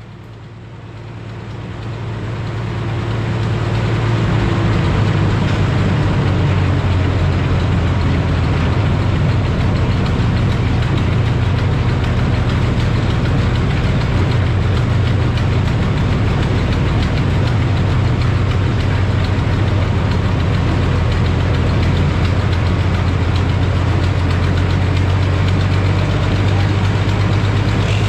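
A 100-horsepower Frick sawmill running, its power unit driving the big circular head saw through the belts. The sound builds over the first few seconds, then holds steady and loud.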